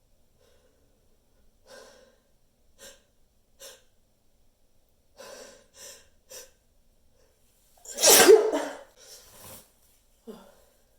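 A person's sneeze buildup: about six short, catching in-breaths a second or so apart, then one big, loud sneeze about eight seconds in, followed by a few softer breaths. The sneeze was held back on purpose, which draws the buildup out.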